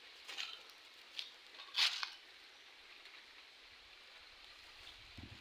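Steady hiss of flowing river water, with a few short sharp noises, the loudest about two seconds in.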